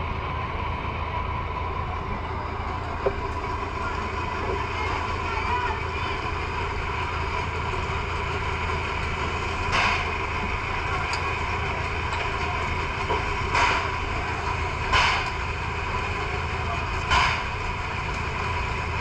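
Fire engine running steadily with a constant low hum. In the second half there are several short, sharp bursts of noise.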